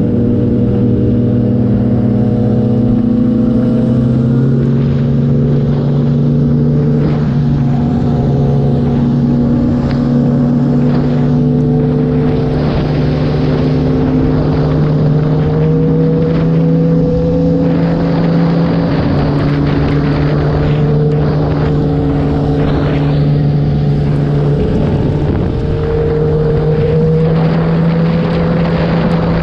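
Onboard sound of a Kawasaki ZX-10R's inline-four engine running at a steady cruise, its note shifting in pitch a few times, with wind rush and wet-road noise over it.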